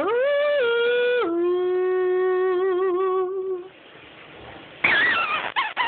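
A woman singing a long held 'whoa' into a cardboard toilet-paper tube. The note steps down twice and is held with a wavering vibrato, then stops. A few short vocal sounds with sliding pitch follow near the end.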